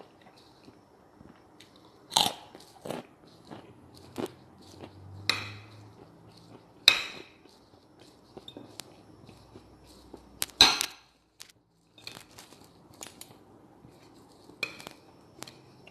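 Crisp fried food bitten and chewed, about six loud crunches (the loudest about two seconds in, near seven seconds and near eleven seconds) with quieter crunching chews between.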